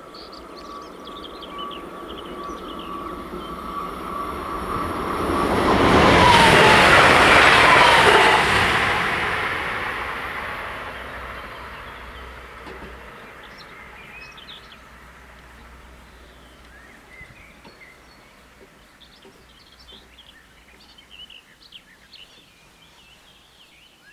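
Eurobahn Stadler FLIRT electric multiple unit passing the level crossing. Its rail and running noise swells to a peak about six to eight seconds in, then fades slowly, and a steady whine from the train drops in pitch as it goes by. Small bird chirps come through as the noise dies away.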